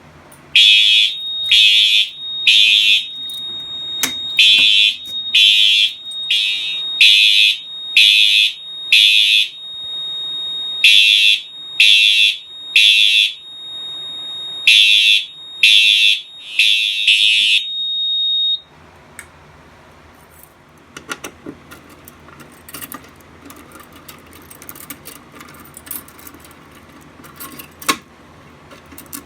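Two synchronized Faraday 2834 fire alarm horns sounding in code 3 (temporal-three): groups of three loud beeps about a second apart with short pauses between the groups. A steady high tone sounds alongside them from about four seconds in, and everything cuts off suddenly a little past halfway. Scattered small clicks and rattles follow.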